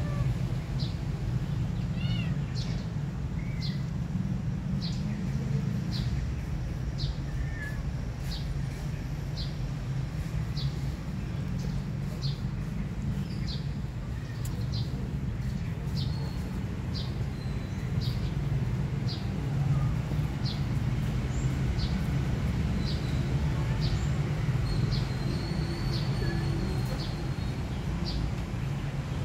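Short high chirps repeating at an even pace, a little more than one a second, over a steady low rumble.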